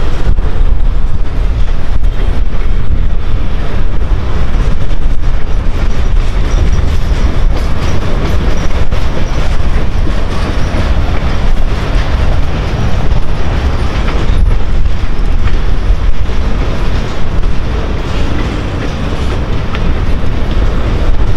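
Freight train of covered hopper cars rolling past close by: a steady loud rumble of steel wheels on rail, with clickety-clack clicks as the wheels cross rail joints.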